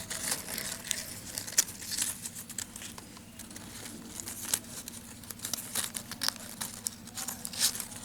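Insulating separators being folded and pressed into the slots of a ceiling fan's stator, giving irregular crinkling and sharp clicks, busier near the end.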